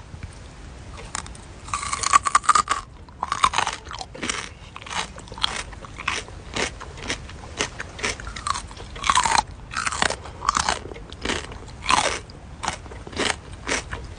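A person biting and chewing a crunchy food, with repeated crisp crunches about one or two a second at an uneven rhythm. The loudest bites come about two seconds in.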